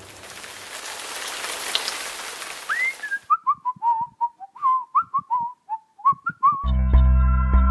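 A rushing hiss for about three seconds, then a run of about a dozen short, high whistling notes that slide up and down, the first a long rising glide. Background music with steady sustained tones comes in near the end.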